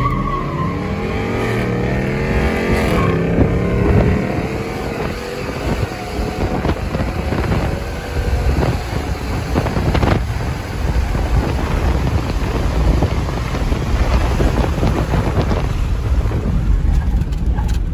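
E85-tuned 2014 GMC Sierra pickup's engine at full throttle, heard from inside the cab. Its pitch climbs and dips twice in the first few seconds as it shifts up, then it gives way to heavy wind and road noise at speed.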